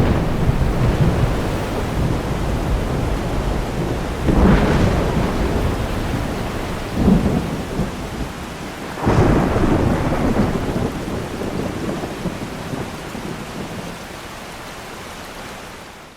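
Thunderstorm: steady heavy rain with rumbling thunder, and thunderclaps swelling up about four, seven and nine seconds in before the rumble slowly dies away.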